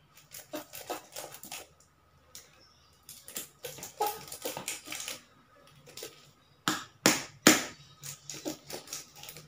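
A near-empty plastic squeeze bottle being squeezed and shaken upside down: irregular crackling clicks and sputters of plastic and air as the last of its contents comes out. A few louder sharp clicks come about three-quarters of the way through.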